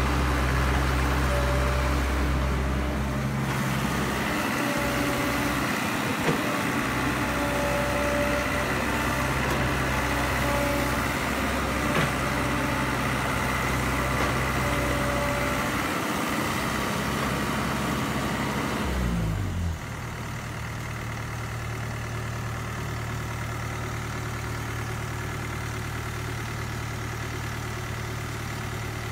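Diesel engine of a CAT E120B tracked hydraulic excavator working under load while it digs, with a few brief whines. About 19 seconds in, the sound changes abruptly and drops in level, becoming a steady, lower engine hum.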